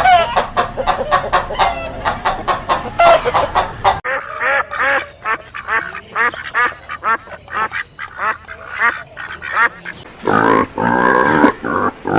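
Farm poultry calling in quick, repeated calls, in separate clips that change about four seconds in and again about ten seconds in, with a longer drawn-out call near the end.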